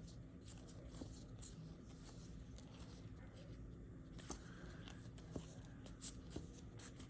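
Faint soft clicks and rustles of trading cards being flipped through by hand, a few scattered ticks over a low steady hum.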